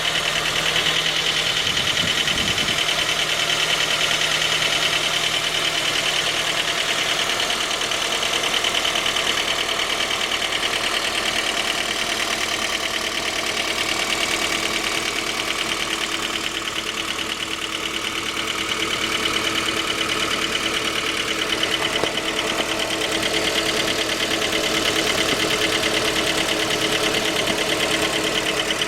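Suzuki J20A 2.0-litre four-cylinder engine idling cold with a rapid, steady knock. The knock was later traced to a scored crankshaft journal on the third cylinder.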